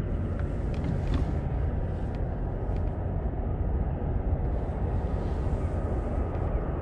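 Wind rumbling steadily on the microphone on open water, with a few faint clicks in the first few seconds.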